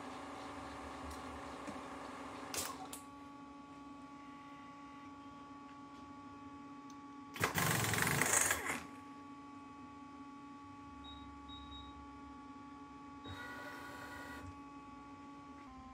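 Vertical milling machine humming steadily. About halfway a loud, harsh hiss-and-rattle burst lasts over a second, and a weaker one comes near the end, while the tool is being worked at the spindle nose.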